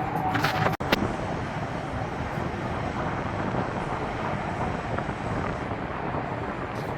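Steady outdoor background rumble, with a brief cut in the sound just under a second in.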